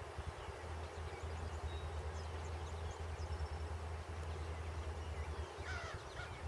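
Outdoor ambience: a steady low rumble under a faint hiss, with small birds chirping faintly about two seconds in and a short bird call near the end.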